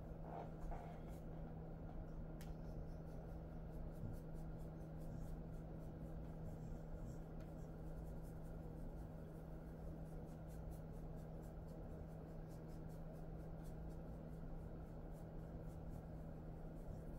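Faint scratchy rustling of hands rubbing and massaging a dog's fur, in many short strokes, over a steady low hum.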